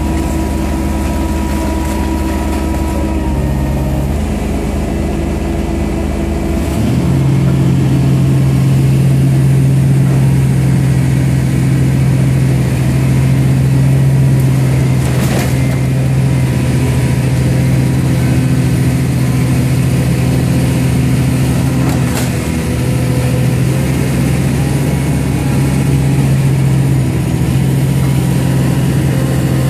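Ecotecnica Orca car baler running steadily. About seven seconds in its note changes to a stronger, higher hum, and there are a couple of sharp knocks later on.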